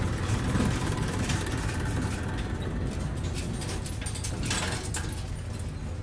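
Diesel engine of a JCB 3DX backhoe loader running steadily as it works soil, a low continuous rumble, with a few light clicks partway through.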